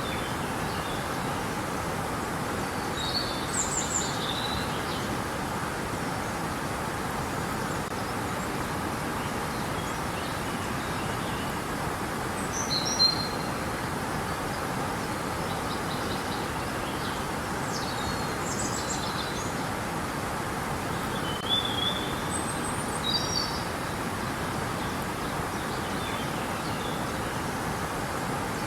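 River water running in a steady, even rush, with a few short bird chirps over it now and then.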